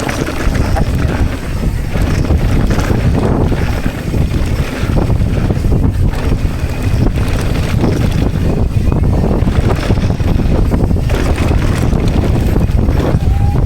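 Wind buffeting the microphone of a camera carried on a mountain bike during a fast downhill run: a loud, steady, rumbling rush.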